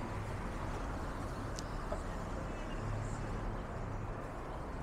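Steady low rumble of city street traffic, with a single faint click a little over a second and a half in.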